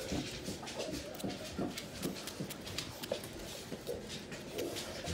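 Young puppy's claws clicking and scratching on a hard plank floor as it walks unsteadily, with a few short puppy whimpers mixed in.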